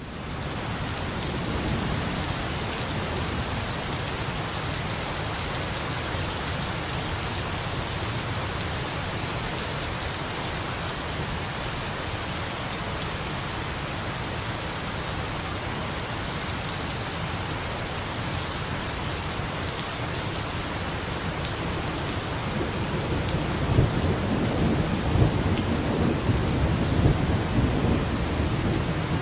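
Heavy rain falling steadily, fading in at the start. Low thunder rumbles build in the last third and swell and fade unevenly.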